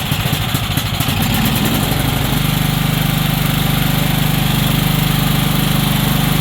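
Tecumseh OHV130 single-cylinder overhead-valve engine on a Weed Eater riding mower, running just after being started. It runs unevenly for about two seconds, then settles into a steady run. The engine is running again after a no-start fault was fixed by restoring spark.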